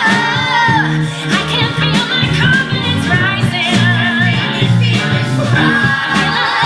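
A mixed group of men and women singing a musical-theatre song together, with band accompaniment.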